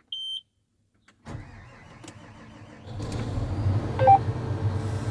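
A short electronic beep, then a combine's diesel engine cranking on the starter from just over a second in and catching about three seconds in, after which it runs louder and steadily. A brief tone sounds just after it catches.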